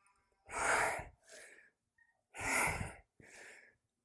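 A woman breathing hard with exertion during barbell rows: two strong exhales, each followed by a shorter, fainter breath, about one cycle per rep.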